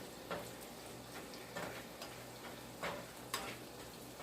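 Onions sautéing in a pan: a faint sizzle with a few sharp, irregularly spaced ticks and pops over a low steady hum.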